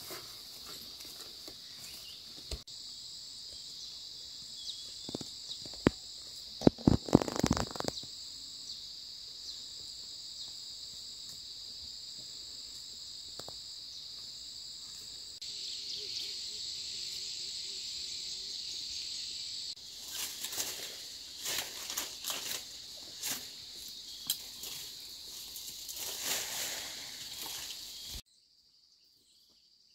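A steady, high chorus of insects, with bouts of rustling and crackling as weeds are pulled by hand from among young corn plants. The loudest is a cluster of crackles about seven seconds in. Near the end the sound drops away suddenly to a fainter insect chorus.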